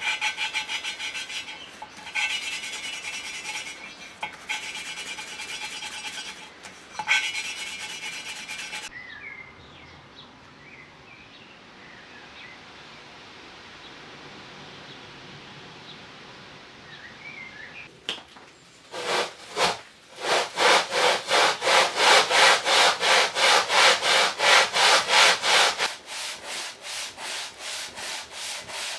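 A small-engine valve being hand-lapped into its seat with a lapping stick: gritty grinding in short bursts with a ringing tone, the lapping compound cutting the valve seat. Later, the engine block is rubbed back and forth on abrasive paper laid flat on the bench to true its head face, in loud, even strokes about three a second that turn quieter near the end.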